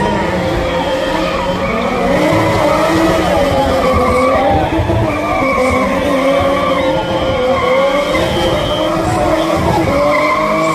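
Car engine held high in the revs, its pitch rising and falling continuously, with tyres skidding.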